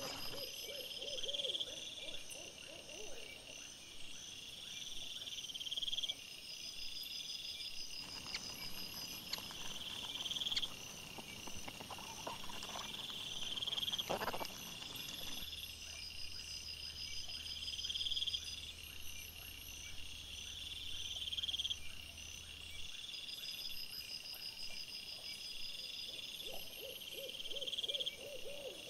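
Night insects chirping steadily in a repeating pattern, with a rising trill about every two to three seconds. A lower, rapid pulsing sound comes near the start and again near the end.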